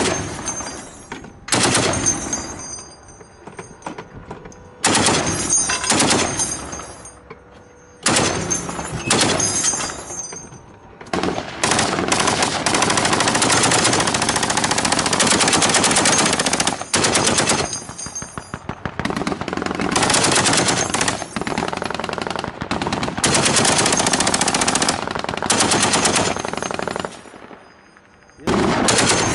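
Tank-mounted machine gun firing in bursts: short bursts a few seconds apart, then one long burst of about six seconds, then several more bursts in quick succession.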